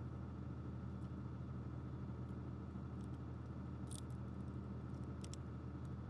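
A few faint clicks and taps from small plastic toy parts being handled, over a steady electrical hum.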